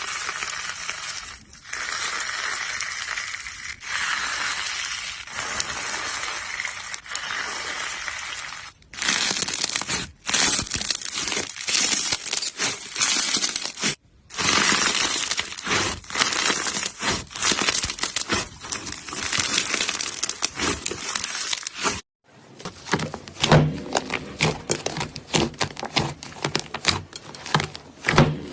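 Slime being squeezed and stretched by hand, a dense crackling and popping. It comes in several clips with abrupt cuts between them, and the last clip has sharper, separate clicks.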